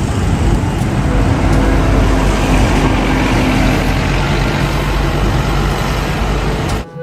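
Steady vehicle rumble with hiss, like a large engine running, which cuts off suddenly shortly before the end.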